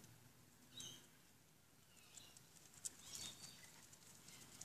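Faint, high-pitched squeaks of puppies about three weeks old: a few short calls scattered through, with a sharp click about three seconds in.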